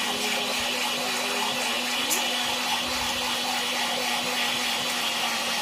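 Electric mixer grinder running steadily, its blade grinding a wet spice paste in the steel jar: an even whirr over a steady motor hum.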